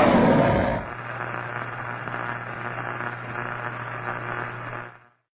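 Sound effect of a logo animation: a loud burst in the first second, then steady static-like noise over a low hum, which cuts off about five seconds in.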